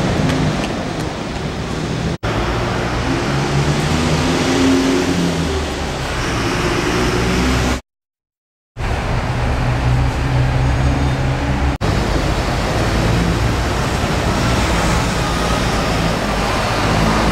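Motor vehicle engine and road noise, a steady low rumble whose pitch shifts now and then, with street traffic around it. It drops out twice for an instant and goes fully silent for about a second near the middle.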